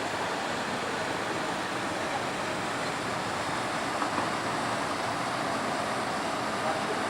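Train running on the rails, a steady rushing rolling noise with no distinct knocks or horn.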